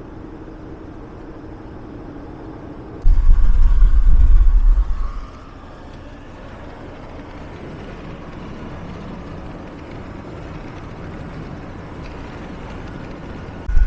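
Steady road and engine noise inside a moving vehicle's cabin. About three seconds in, a loud low rumble lasts about two seconds, and another begins at the very end.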